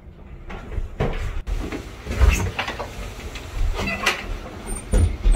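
Clicks and knocks of a glass entrance door's handle and latch as it is opened, over a rushing hiss with some handling noise.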